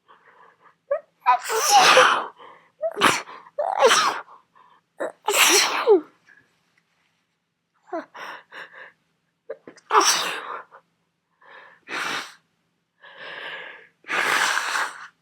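A person with a head cold sneezing in a long fit: a string of loud sneezes, four in quick succession in the first six seconds, then after a short pause three more, with quick sharp in-breaths between them.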